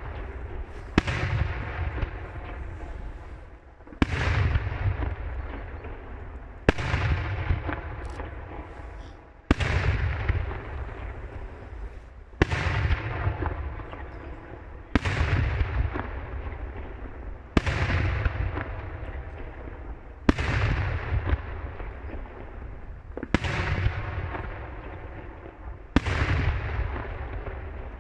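Daytime aerial fireworks shells bursting one after another, about every two and a half to three seconds, about ten in all. Each burst is a sharp bang followed by a rolling, rumbling echo that dies away before the next.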